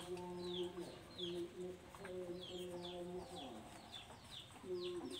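Chicks peeping: a steady run of short, high, falling notes, two or three a second, over a low drawn-out call from a hen that breaks off and now and then slides down in pitch.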